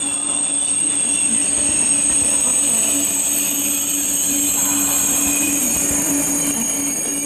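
TGV Atlantique trainset's passenger cars rolling slowly past on the rails, with a steady high-pitched squeal and a steady low hum over the running noise of the wheels.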